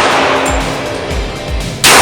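A single .45 ACP pistol shot from a Rock Island Armory Ultra FS 1911, near the end, while the tail of the previous shot fades at the start. Background music with a steady beat runs underneath.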